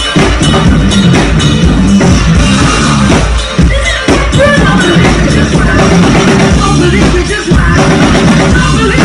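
Loud live band music with a drum kit and bass guitar playing a rock beat.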